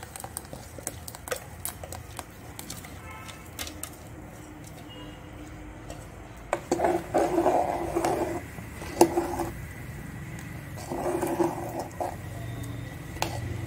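Curry with freshly added ground masala simmering in a pot, bubbling with small pops and clicks. From about halfway there are several louder short sounds, and near the end a ladle stirs through the liquid.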